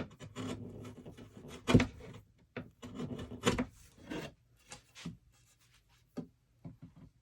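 Freshly sharpened steel chisel paring wood, with several scraping cuts across and along the grain, the loudest about two and three and a half seconds in. A few light ticks follow near the end.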